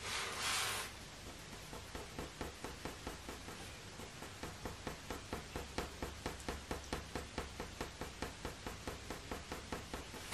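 Faber-Castell Polychromos coloured pencil making quick, light fur strokes on hot-press watercolour paper, a rhythmic scratch about three or four times a second. It starts after a brief rustle about a second in.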